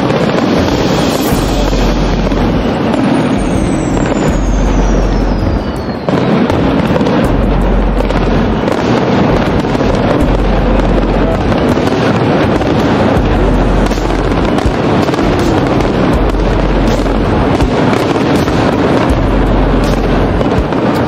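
Aerial fireworks display at the height of a barrage: shells bursting one after another in a continuous mix of booms and crackle, with a whistle falling in pitch a few seconds in.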